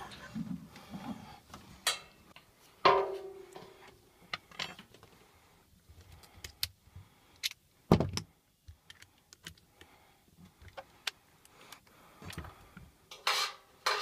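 Scattered clicks, knocks and metallic clanks from hands and tools working inside an air handler's sheet-metal blower compartment to free the capacitor's mounting strap. One clank about three seconds in rings briefly, and a heavy thump comes about eight seconds in.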